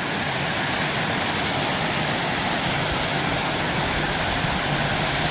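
Steady rushing roar of a waterfall, an even wash of noise with no breaks.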